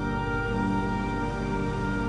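Background music with slow, sustained chords.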